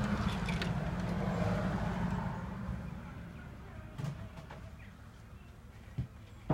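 A steady low engine hum from a vehicle fades away over the first few seconds, leaving quiet room tone broken by a few soft knocks.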